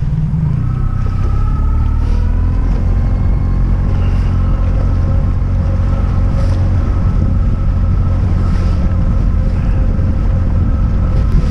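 Tiller-steered outboard motor running an aluminium fishing boat at speed: its pitch climbs over the first few seconds as the throttle opens, then holds steady.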